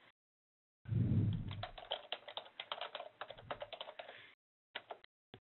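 Computer keyboard typing: a dull bump about a second in, then a quick run of keystrokes for about three seconds as a web address is typed. A few separate clicks follow near the end.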